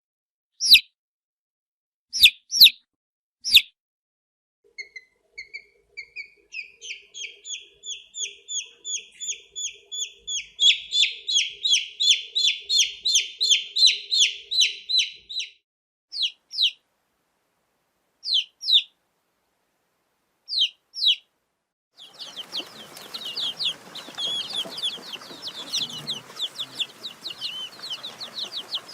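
Baby chicks peeping. A few single peeps come first, then a long run of rapid, repeated peeps that climb in pitch and get louder. Scattered pairs of peeps follow, and about 22 seconds in it changes to many chicks peeping at once over a hissy background.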